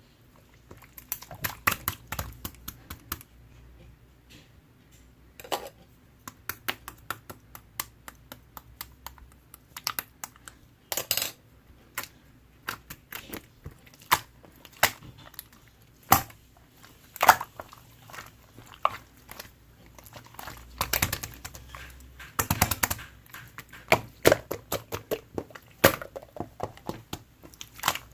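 Yellow slime being pressed, stretched and poked by hand, giving irregular sticky clicks and pops, with a few denser clusters of crackling pops along the way.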